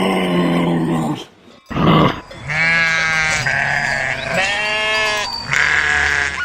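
Sheep bleating repeatedly: a run of drawn-out bleats about a second each, broken by a brief gap a little after the first second.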